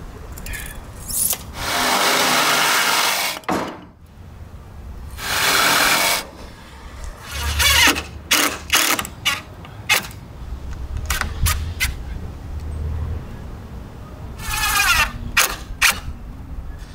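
Hand-held power tool run in two bursts of a second or two, then a series of sharp knocks and taps, and a shorter run of the tool near the end.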